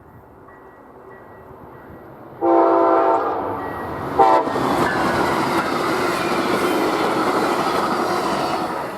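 Diesel locomotive air horn sounding a long blast about two and a half seconds in, then a short blast a second and a half later. The steady loud noise of a train passing over the rails follows, fading off near the end.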